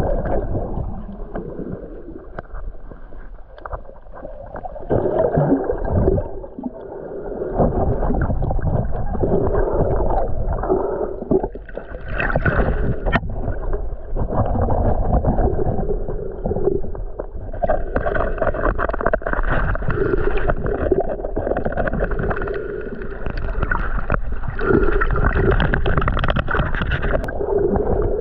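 Muffled water sloshing and gurgling from a snorkeler swimming in the water, rising and falling in loudness.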